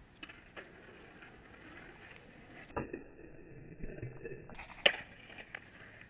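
Skateboard wheels rolling over pavement, with a few sharp clacks of the board hitting the ground; the loudest clack comes about five seconds in. For about a second and a half in the middle the sound turns muffled.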